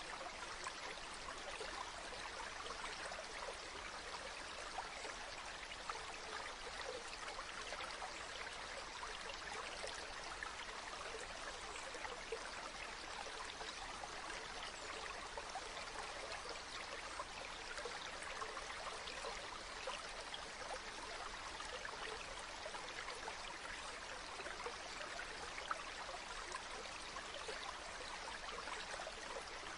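A stream of water running and babbling steadily, an even rush with small splashy flecks and no change throughout.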